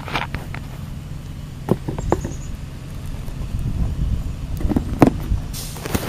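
Camera handling noise: scattered knocks and rubbing against the microphone over a steady low rumble.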